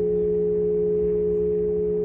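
Church bell ringing on in a long, steady, deep tone, with no new strike. It is the parish's afternoon call-to-prayer bell.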